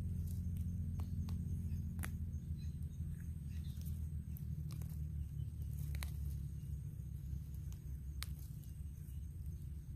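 Scattered sharp clicks and rustles of dry leaf litter and twigs as hands pull wild mushrooms from the forest floor, over a low steady drone.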